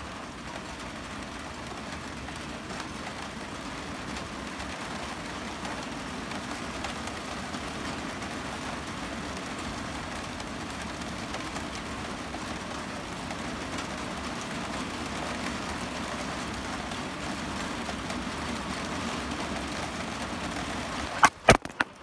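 Steady rain falling, a dense even patter that grows slightly louder. Near the end come a few sharp knocks from the phone being handled.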